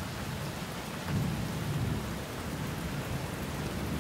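Steady rain-like hiss with a low rumble like distant thunder that swells about a second in and then eases back.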